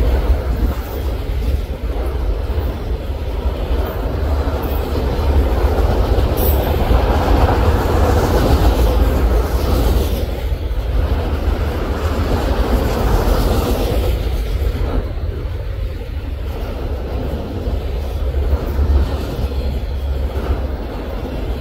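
Autorack cars of a passing freight train rolling by: a steady, loud sound of steel wheels on the rails with some clickety-clack.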